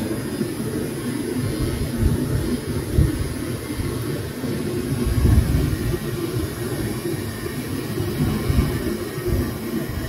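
NeuMaster 3.6-volt cordless rotary tool running steadily at low speed with a half cotton swab in its collet, polishing a 3D-printer extruder nozzle. The running noise is low-pitched, with small swells as the swab presses on the part.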